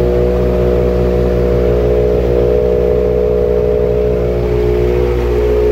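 Subaru WRX's turbocharged flat-four idling steadily while still cold, heard close at the exhaust tip.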